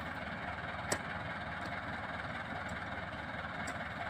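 Massey Ferguson 385 tractor's four-cylinder diesel engine running steadily as it pulls a heavily loaded trolley. A single sharp knock about a second in, as a spade strikes the ground.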